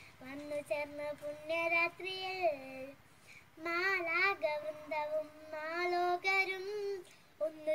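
A young girl singing a Malayalam Christmas song solo, in held, wavering notes, with short breaks between phrases about three seconds in and near the end.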